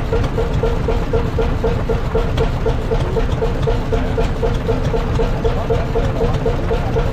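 A Danish-built 60 hp Hundested two-stroke hot bulb engine running steadily at slow speed, with an even beat of about five strokes a second.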